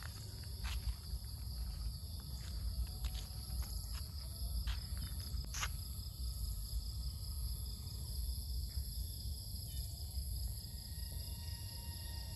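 Steady, high-pitched chorus of insects, several unbroken shrill tones sounding together, over a low rumble. A few short, sharp clicks come in the first half.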